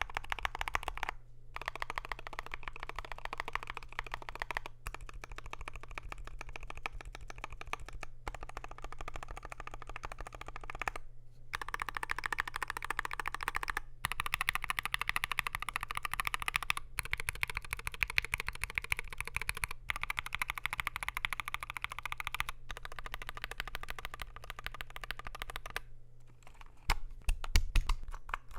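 Fast, continuous typing on a Wooting 60HE keyboard in a Mekanisk Klippe-T case, with lubed and filmed Gateron Lekker Hall effect switches under PBT keycaps. Near the end the typing thins out to a few slower, louder keystrokes with deeper thumps.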